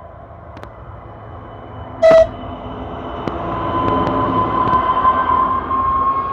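Czech Railways class 854 diesel railcar giving one very short, very loud horn blast as a greeting about two seconds in, then passing close by under power, its engine getting louder with a whine that slowly rises in pitch as it pulls away.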